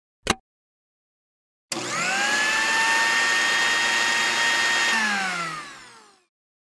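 A short click, then an electric food chopper's motor starts with a rising whine, runs steadily for about three seconds, and winds down with a falling whine.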